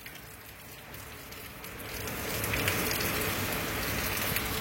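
Heavy rain pouring down in a severe windstorm, an even hiss that grows louder from about two seconds in as the downpour and wind pick up.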